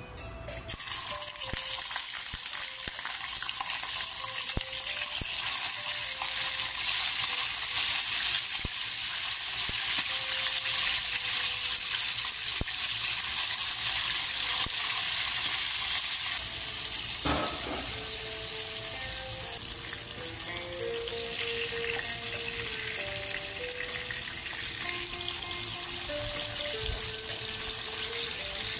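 Milkfish (bangus) steaks frying in hot oil in a pan: a loud, steady sizzle that sets in about a second in and eases a little in the second half.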